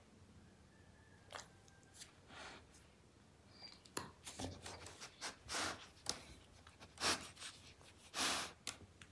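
Young German Shepherd sniffing and snorting in short puffs as a finger boops her nose, faint at first, then several louder snorts in the second half.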